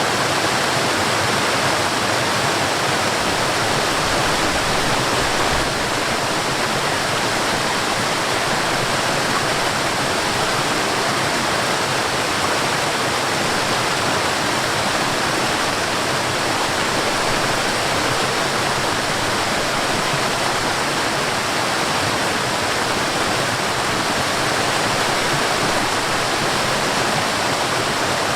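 Water from a small waterfall and stream, falling and rushing in a steady, even wash of noise.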